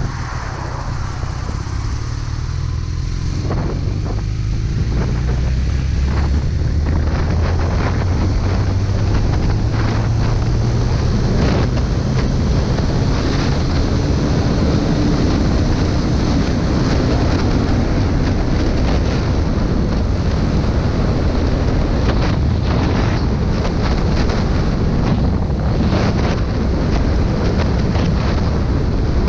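Honda CB250N Superdream's parallel-twin engine pulling the bike along the road, its note rising over the first dozen seconds as it accelerates, under heavy wind noise on the microphone that soon dominates.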